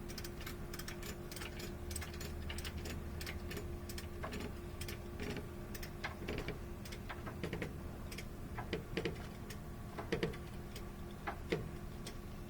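A run of irregular sharp clicks and ticks, quick at first, then sparser, with a few heavier knocks in the last few seconds, over a steady low hum.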